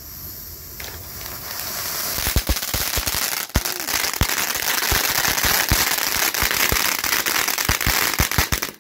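Two World Class Fireball mini firework fountains spraying sparks with a building hiss. From about two seconds in they crackle: a dense, irregular run of sharp pops over the hiss.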